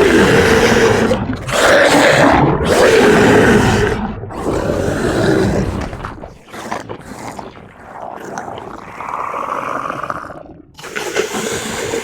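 Monster/alien creature sound effects: a series of harsh, growling roars a second or two long, separated by brief gaps, the first few loudest.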